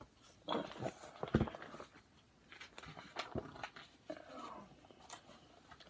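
Soft, scattered taps and rustles of a hardcover picture book being handled and its pages turned.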